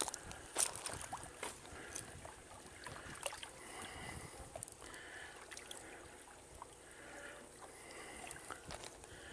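Small waves lapping quietly against the stones and mangrove roots at the water's edge.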